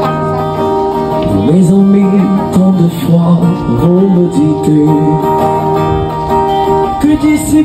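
Acoustic guitar played through a small portable amplifier by a street musician. A low male voice sings along from about a second and a half in.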